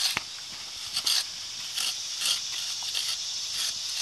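A hand trowel scraping and peeling back soil, a series of short, irregular scrapes with a sharp click near the start.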